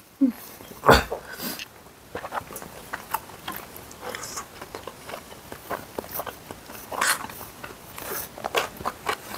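Close-up eating sounds from people eating spaghetti: chewing and wet mouth smacks, picked up by a clip-on microphone, with scattered short clicks, the loudest about a second in and again near seven seconds.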